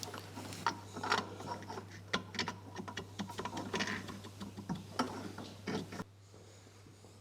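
Irregular metallic clicks and knocks of bearing caps and hand tools being handled as the caps are fitted to the crankcase of a Matabele V12 aero engine. They stop about six seconds in, leaving a steady low hum.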